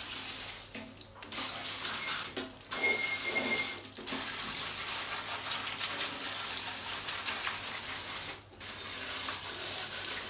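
Jet of water spraying with a loud hiss onto the metal chassis and rubber tyres of a 1/14-scale RC 8x8 truck, breaking off briefly four times. A thin whistle sounds for about a second around three seconds in.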